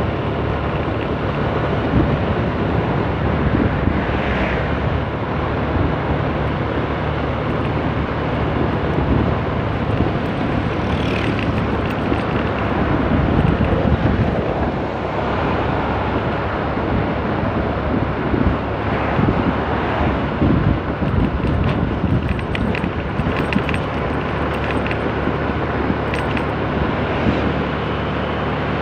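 Motorbike engine running steadily while riding along a road, with air rushing past the microphone.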